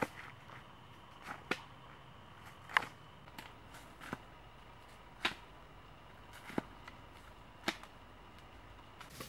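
Slow footsteps and walking-stick taps crunching on dry fallen leaves, one short sharp crunch roughly every second.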